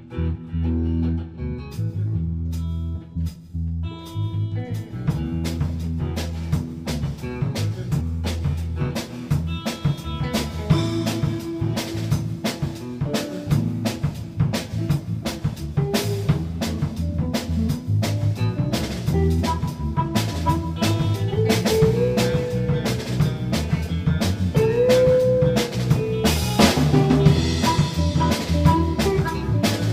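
Blues band music with a drum kit keeping a steady beat under bass and electric guitar; the drums fill in after the first few seconds, and the guitar bends notes about two-thirds of the way through.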